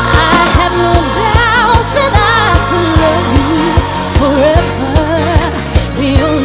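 Pop song: a singer holding wavering notes over a steady drum beat.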